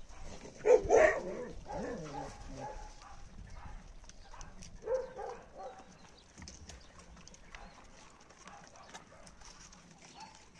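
Dogs barking, a burst of barks about a second in and another bark around five seconds in, then quieter.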